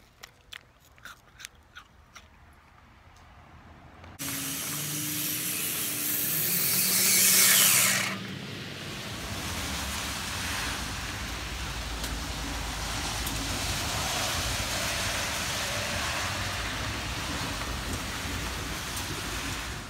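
Faint clicking and crinkling from a plastic ice-pop sleeve as a freezie is sucked and bitten. About four seconds in, a steady outdoor hiss of rain starts. A louder rushing surge builds over the next few seconds and stops suddenly about eight seconds in.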